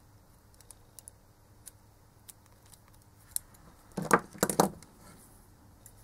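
Small hand tools handled on a workbench: a few light clicks of a pointed tool working a plastic SATA connector, then about four seconds in two quick clatters as needle-nose pliers are picked up from another pair.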